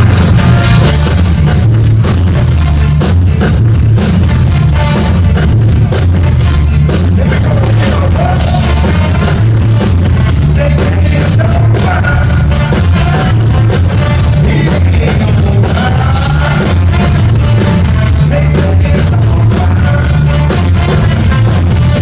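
Live band playing loud rock/ska-style music with heavy bass, drum kit and guitar, with some singing, recorded from the audience.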